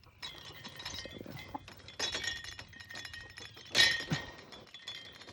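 Light clinking and rattling, with a louder clatter about four seconds in.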